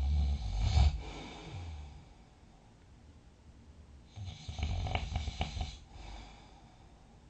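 A person snoring in sleep: one snore tails off about a second in, then after a quiet breath a second snore comes about four seconds in with a rattling flutter and lasts under two seconds.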